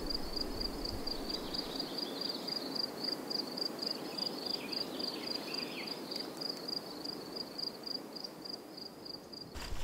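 Crickets chirping steadily in a high, even pulse of about four chirps a second, over a soft background hiss.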